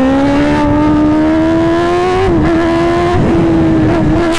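Kawasaki ZX-10R's inline-four engine running under acceleration, its note rising steadily, then dipping briefly about two seconds in and holding a steady pitch after.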